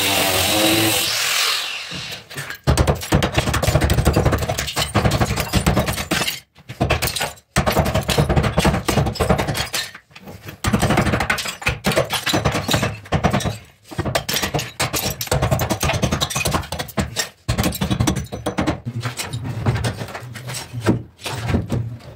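Angle grinder cutting brick, stopping about a second and a half in; then a power tool works at the brickwork in rattling bursts of a second or more with short pauses between.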